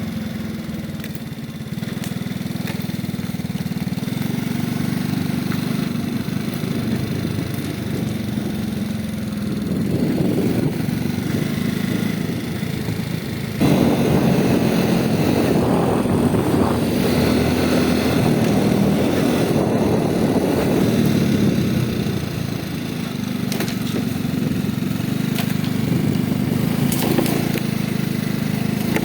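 An engine running steadily at a low pitch, becoming louder and rougher for several seconds from about halfway in.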